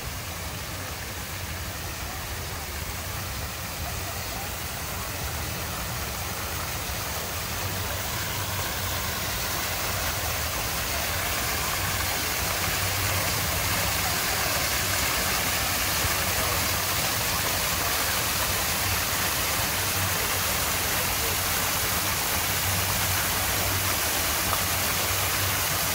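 Fountain water jets rushing and splashing in a steady hiss that grows louder over the first half, then holds.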